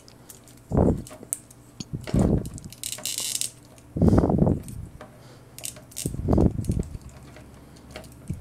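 Hands handling a plastic action figure and its shotgun accessory: small plastic clicks and several short, dull bursts of handling noise as the gun is fitted into the figure's hands.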